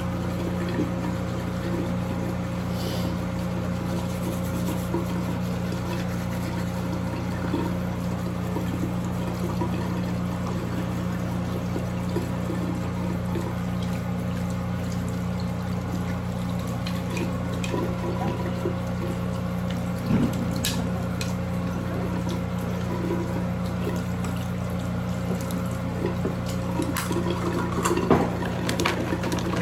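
Steady running water over a low steady hum, with a few clicks and knocks near the end.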